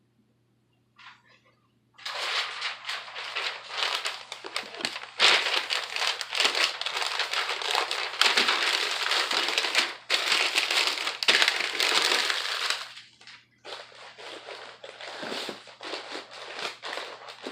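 Packing paper being crumpled and rustled, a dense crinkling that starts about two seconds in, is loudest through the middle, and tails off to lighter crackling near the end: paper being balled up and wrapped around an item for a moving box.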